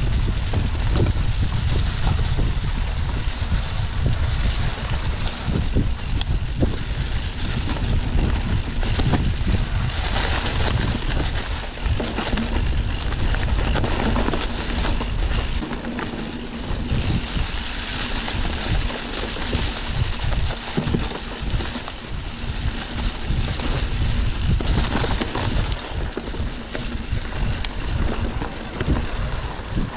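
Wind rushing over a moving camera's microphone while riding: a heavy buffeting rumble that eases off about halfway, leaving a steadier hiss.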